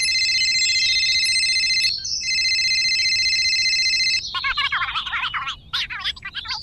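Telephone ringtone: a high electronic trilling ring, twice for about two seconds each with a short gap between. About four seconds in it gives way to rapid, birdlike chirping.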